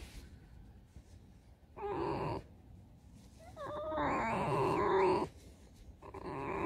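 Pet fox whining in three wavering calls, the middle one the longest.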